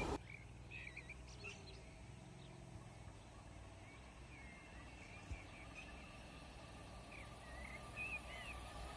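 Small birds chirping in short calls that bend up and down in pitch, a few near the start and a cluster near the end, over faint low rumble. Near the end the rumble of a distant approaching train begins to build.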